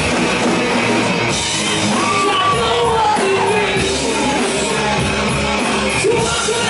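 Live rock band playing with a singer belting out the vocal line, heard loud from within the crowd in a bar room.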